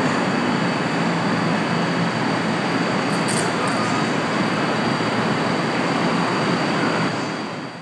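Electric passenger train at a station platform, giving a steady, even running noise with a thin high whine throughout. The sound fades out at the very end.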